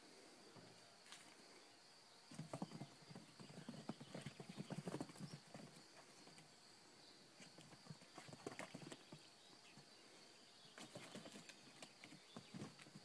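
Kittens scampering and pouncing around a cardboard box: faint spells of quick, light pattering taps and scuffles from their paws, coming in three bursts.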